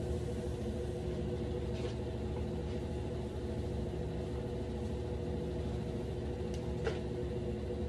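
Steady low mechanical hum with a constant drone, and a faint click about seven seconds in.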